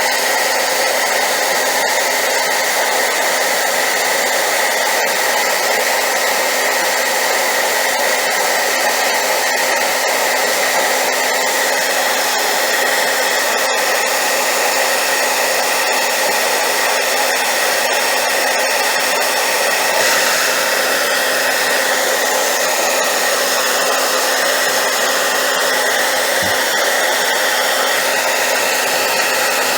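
Hair dryer running steadily on high power: a continuous loud rushing of air with a faint steady whine in it. The tone shifts slightly about two-thirds of the way through.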